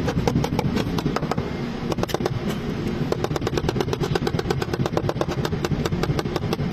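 A machine running with a fast, even knock, about eight beats a second, over a low rumble.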